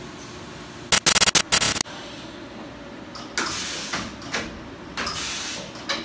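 Toyoda FV1165 CNC vertical machining center running a program under a steady hum. About a second in it gives a loud, rapid mechanical rattle in a few short bursts, followed by several shorter hissing bursts.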